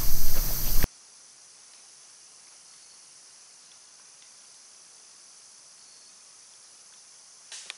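A loud rush of noise stops abruptly about a second in. After it, a steady high chorus of insects runs on, with a brief faint rustle near the end.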